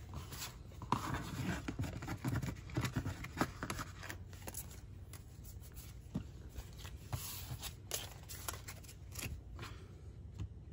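Pokémon trading cards being handled and laid down on a tabletop: light sliding, scraping and tapping of card stock, busiest in the first few seconds.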